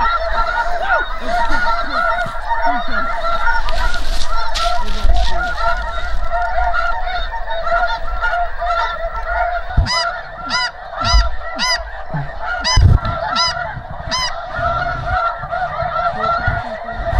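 A large flock of snow geese calling, a dense continuous chorus of overlapping honks and yelps. In the second half some sharper calls repeat quickly and stand out from the rest, and a few low thumps come in among them.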